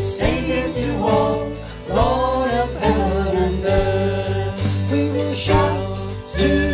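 Contemporary worship song: several voices singing together over acoustic guitar and electric bass guitar.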